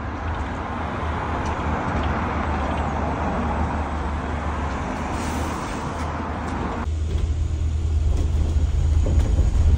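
Road traffic noise as a double-decker bus pulls up to the stop. About seven seconds in the sound cuts abruptly to the steady low engine hum heard from inside a moving double-decker bus.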